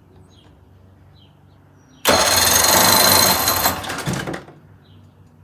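1980 Chrysler 45 hp outboard motor cranked over for about two seconds, starting suddenly about two seconds in and tailing off, without catching. A crank-no-start, which the mechanic suspects comes from a plugged carburettor or stale ethanol fuel.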